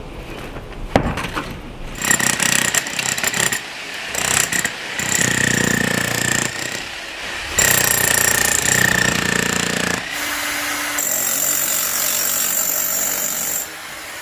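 Jackhammer breaking up a concrete pad, running in several bursts with short pauses between them, after a few knocks at the start.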